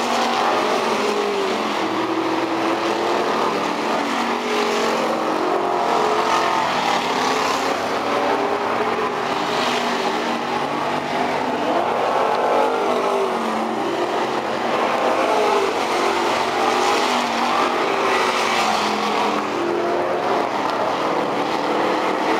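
Several outlaw street stock dirt-track race cars running laps at full race pace, their engines layered over one another. The engine noise swells each time cars pass close by.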